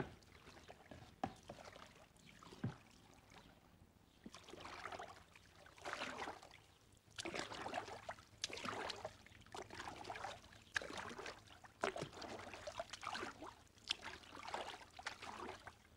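Kayak paddling: a double-bladed paddle dipping into the water in a steady rhythm, a splashing swish about once a second, starting a few seconds in.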